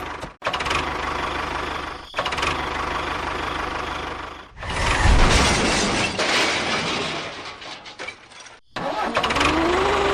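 A machine's engine running, in short segments that cut off abruptly several times. It is loudest and harshest in the middle stretch, which opens with a low thump.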